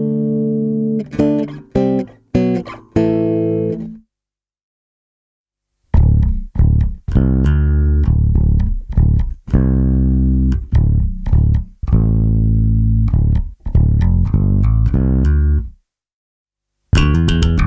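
Warwick Corvette bubinga six-string bass with Seymour Duncan Basslines humbuckers, played clean through its active preamp. It plays a phrase of plucked notes with the bass EQ cut, ending about four seconds in. After a short silence a new passage starts with treble and bass both boosted, with a much fuller low end. It pauses briefly near the end, then resumes.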